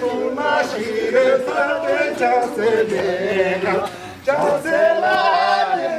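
A group of men singing a Nepali song together, with a short break about four seconds in.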